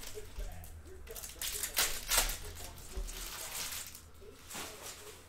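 Foil trading-card pack wrappers crinkling and tearing open while cards are handled and shuffled into a stack, with sharper crackles around two seconds in.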